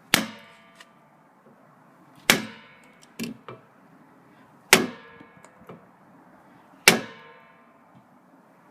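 Pommel of a Cold Steel Recon 1 folding knife struck hard into wood: four sharp blows about two seconds apart, each with a brief metallic ring, and a lighter knock between the second and third.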